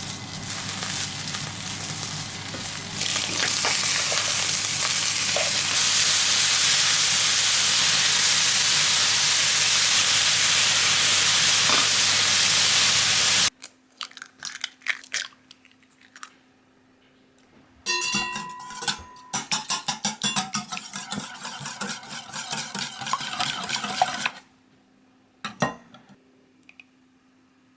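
Food sizzling in a frying pan, a steady hiss that grows louder twice and then cuts off abruptly. After that, scattered clicks and a run of metal utensils clinking and scraping against pans and dishes.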